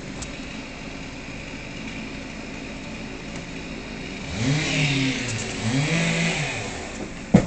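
Chainsaw engine idling low, then revved up and let fall back twice, each rev lasting about a second and a half. A single sharp click comes near the end.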